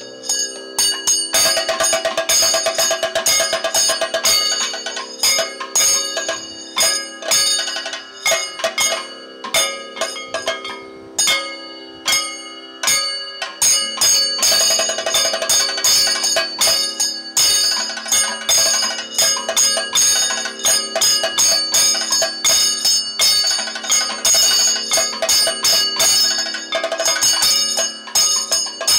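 Kathakali percussion accompaniment: the singers' small hand cymbals (ilathalam) and gong (chengila) are struck in a fast, driving rhythm, with a lasting metallic ringing that carries between strokes.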